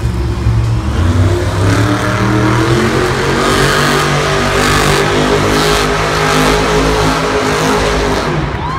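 Monster truck's supercharged big-block V8 revving hard as the truck spins donuts in dirt. The engine note climbs over the first couple of seconds, holds high, and drops off near the end.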